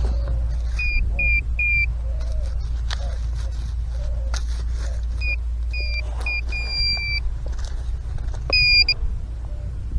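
Handheld metal-detecting pinpointer beeping as it probes a dug hole for a buried target, which is a piece of iron. There are three short high beeps about a second in, then a run of beeps that ends in a longer held tone, then another brief beep near the end, with a few clicks and knocks of digging.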